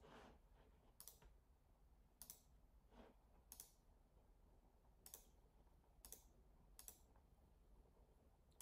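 Faint computer mouse clicks, about seven sharp, irregularly spaced clicks over quiet room tone, as items in a software menu are selected.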